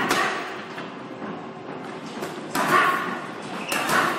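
Gloved punches landing on a hanging heavy bag: three heavy hits, one at the start, one after about two and a half seconds and one near the end, with quieter shuffling between.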